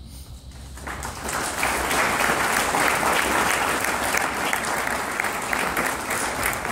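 Audience applause, a crowd of many people clapping. It builds over the first second or two, stays steady, and begins to thin near the end.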